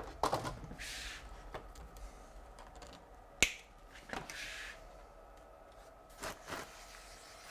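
Stiff card being handled and pressed into place: a few soft rustling scrapes, light taps, and one sharp snap-like click about three and a half seconds in.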